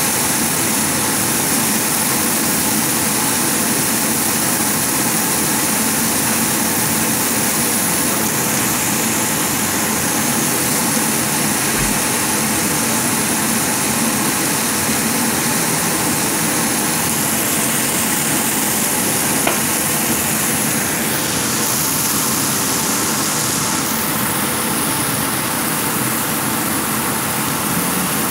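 Steady hiss and rush of spiny lobster halves sizzling on a hot flat-top griddle, mixed with a kitchen extractor hood running. The sound is even throughout.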